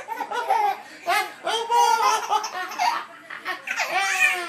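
Baby laughing in several high-pitched bursts while being nuzzled on the belly.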